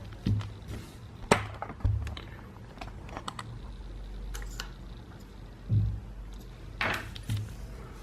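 Irregular small metallic clicks and taps of a snake rake being worked in a dimple lock cylinder's keyway under a tension tool. There are sharper clicks a little after one second and again near seven seconds.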